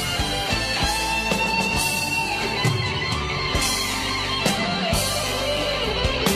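Instrumental break of a Mandarin pop-rock ballad: a guitar-led band with drums and cymbals, the lead line holding and sliding between notes.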